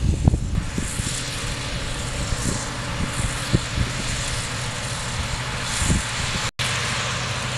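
Diesel engines of farm tractors and a Case IH 2388 combine harvester running with a steady drone as they are hitched to pull the bogged combine out. Scattered low thumps of wind on the microphone are heard, and the sound cuts out for an instant about two-thirds of the way through.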